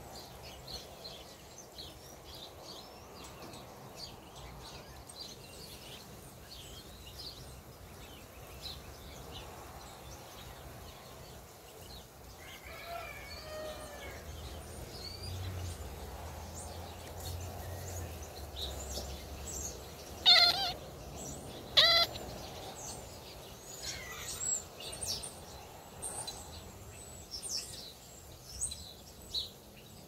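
Small birds chirping outside, and a house cat chirping back at them, the excited call cats make when watching prey. There is a short warbling call about thirteen seconds in, then two loud chirps around twenty and twenty-two seconds in.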